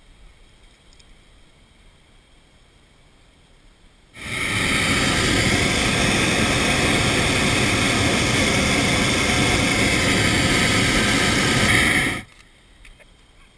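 Hot-air balloon's propane burner firing in one long blast of about eight seconds, heating the air in the envelope: a loud, steady rushing noise that starts suddenly about four seconds in and cuts off sharply near the end.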